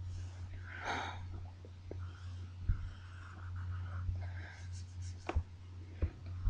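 Faint scratching of a permanent marker drawing on spiral-notebook paper, over a steady low hum, with a few light taps.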